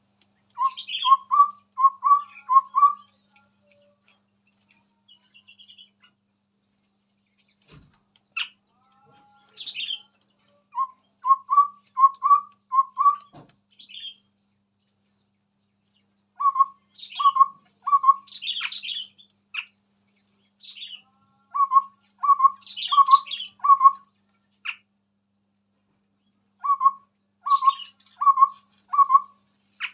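Chestnut-rumped babbler singing: phrases of four or five low whistled notes in an even run, repeated five times, with short higher chattering calls between the phrases.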